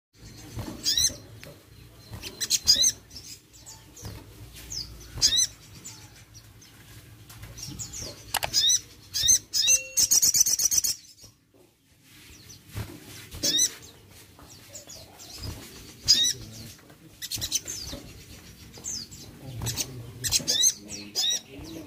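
Sogon, a small songbird, singing: repeated short phrases of high, sharply sweeping chirps a second or two apart, with a fast buzzy trill about ten seconds in followed by a brief pause.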